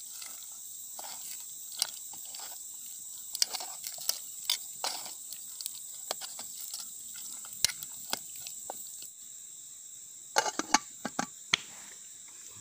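A metal spoon scraping and clinking against an aluminium pot as the food is stirred, in irregular short clicks. A quick run of louder clanks near the end as the lid is put on. A steady high insect drone runs underneath.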